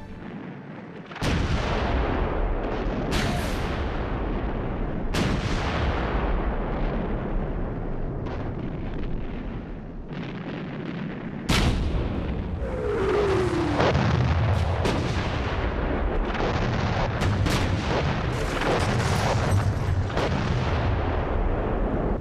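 Artillery bombardment: heavy guns firing and shells bursting in repeated loud booms with rumbling between them. It starts about a second in and grows denser about halfway through, where a short falling whistle is heard.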